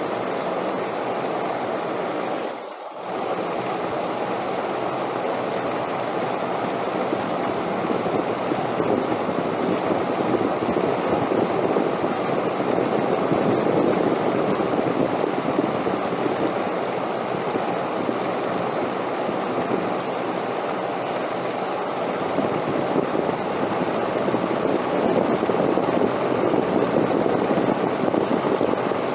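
Steady rushing wind, swelling and easing gently, with a brief drop in level about three seconds in.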